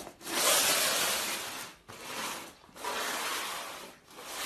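A cardboard box with a cat inside scraping as it is slid across a laminate floor, in three pushes of about a second or so each with short pauses between.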